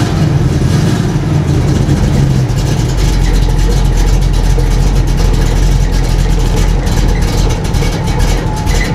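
Pickup truck engine idling in drive with a jacked-up rear wheel spinning freely, during a check for a dragging brake, which turns out to be fine. The engine note drops lower about three seconds in, and a steady whine comes in near the end.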